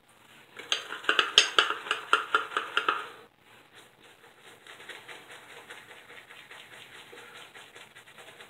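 Shaving brush working shaving-soap lather: a loud, rapid run of wet swishing strokes, about five a second, for a couple of seconds. After that comes softer, steady brushing as the lather is worked over the face and neck.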